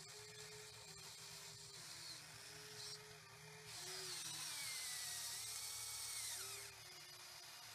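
Radio-controlled excavator's small electric motors whining in short, stop-start runs as the boom and bucket move, with the pitch shifting as each motion speeds up and slows. A louder, higher whine runs for about three seconds from a little before the middle.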